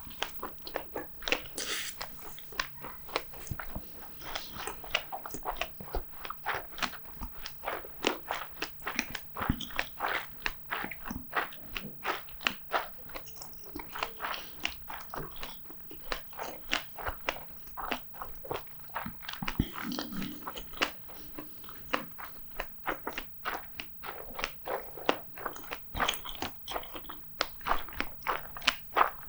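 Close-up eating sounds: a person chewing, with a rapid, continuous stream of short, sharp wet mouth clicks and smacks.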